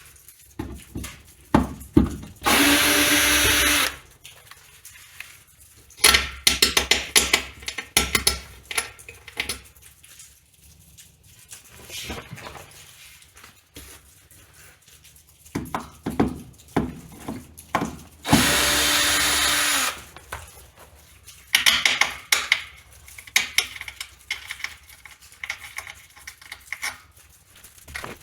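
Power drill backing screws out of a plywood deck: two steady runs of the motor, each about a second and a half long, with clicks and knocks of handling in between.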